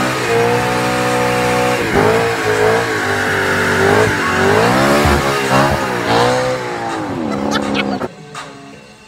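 A car engine revving hard, its pitch rising and falling several times in quick succession, then cutting off about eight seconds in.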